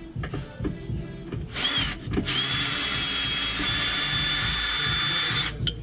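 Power drill running in two bursts, a short one and then a steady run of about three seconds with an even motor whine, driving out the screws that hold the subwoofers in the wall.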